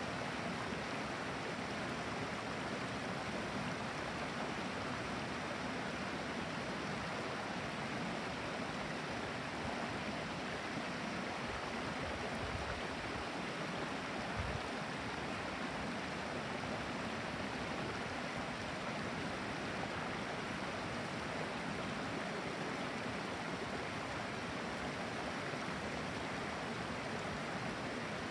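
Clear, shallow creek burbling over and between stones, with water spilling over low rock ledges in a steady, even rush.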